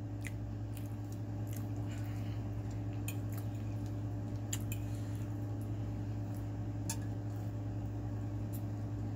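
Metal cutlery clinking and scraping on a ceramic plate as food is picked up, in scattered light clicks. A steady low hum runs underneath.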